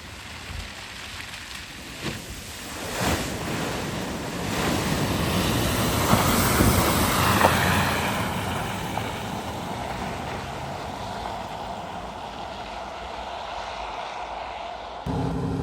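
Floodwater splashing and rushing at a flooded ford, building to its loudest about six to eight seconds in and then easing off.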